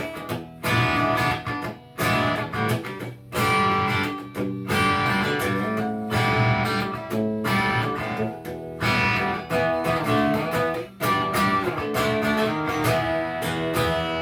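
Electric guitar with a Wolfetone P90 bridge pickup, played through a Peavey JSX amp with the gain at about 10 to 11 o'clock and the guitar's volume knob rolled back to a little above 3. The volume cut cleans up the amp's drive. The playing is strummed chords and picked phrases with short stops, and the last chord is left ringing near the end.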